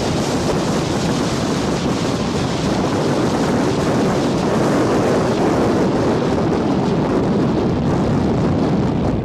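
Snowmobile running at speed with heavy wind rushing over the microphone, a steady loud roar with no distinct engine note standing out.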